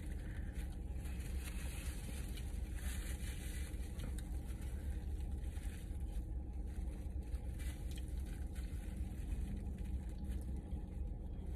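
Quiet, soft chewing and mouth sounds of someone eating, a few faint squishy bites spread across the stretch, over a steady low hum.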